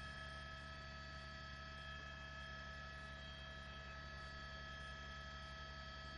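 Steady electrical hum with faint hiss and a few thin, steady high-pitched tones: the background noise of a broadcast feed.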